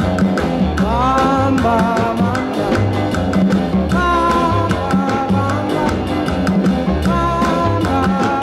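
Background music: a song with singing over a steady beat of drums and bass.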